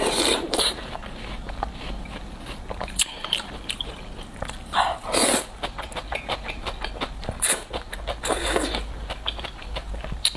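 Close-miked eating of cold noodles: wet chewing and mouth clicks, with long noodle slurps around the middle and again later.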